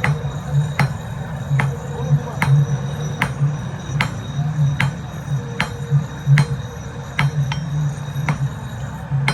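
Blacksmith's hammer striking steel on an anvil while forging a chisel: sharp, ringing blows in an even rhythm, roughly one every 0.8 seconds, over a low pulsing hum.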